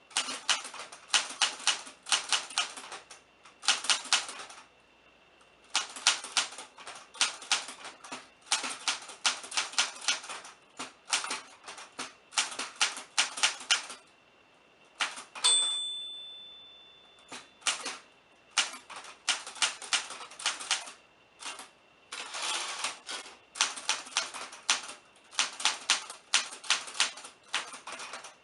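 Typewriter typing: rapid runs of key strikes with short pauses between words and lines. About halfway through, one strike sets off a clear ringing tone that fades over a couple of seconds, the typewriter's end-of-line margin bell.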